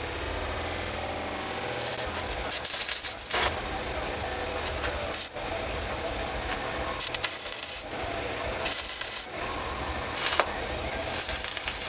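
Stick (arc) welder's arc crackling and sizzling in about six short spurts, each up to about a second long, as tack welds are struck, over a steady low hum.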